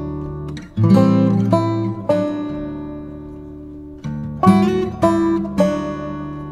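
Background music: an acoustic guitar playing strummed and plucked chords that ring out and fade between strokes.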